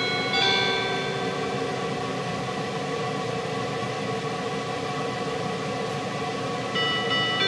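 Bell-like notes of a 485-series train's onboard PA chime die away in the first second, leaving the steady hiss and hum of the car interior; about seven seconds in, a new chime melody starts over the speakers.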